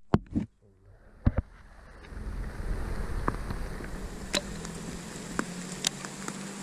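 Light clicks and taps of a crossbow being handled in a tree stand, single knocks every second or so over a steady hiss.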